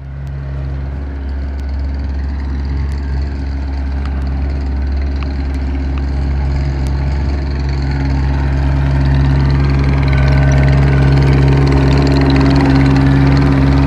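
Gehl 185 skid steer's diesel engine running steadily, slowly growing louder.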